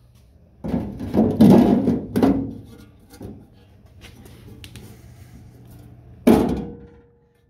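Home-made sheet-steel license plate box being pushed by hand into its cut-out in the truck body: metal scraping and clanking against the panel, then one sharp metal knock with a short ring near the end as it seats.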